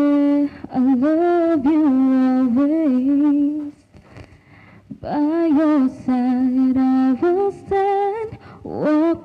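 A woman singing solo into a handheld microphone, unaccompanied, in long held notes with a slight waver. She sings two phrases, with a pause of about a second near the middle.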